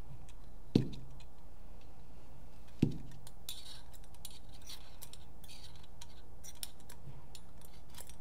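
Small tools and parts of a paintball marker being handled on a workbench: two sharp knocks about two seconds apart, then a run of faint light clicks and ticks as the breakbeam eyes are worked out of the body.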